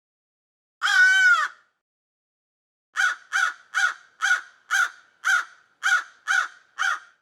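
A crow cawing: one long, drawn-out caw about a second in, then after a pause a quick series of about nine short caws, roughly two a second.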